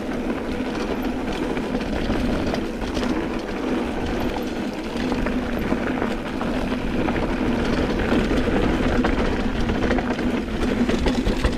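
Mountain bike rolling fast down a dirt singletrack: the tyres rumble over the trail and the bike rattles, with wind on the microphone. A faint buzzing hum comes and goes.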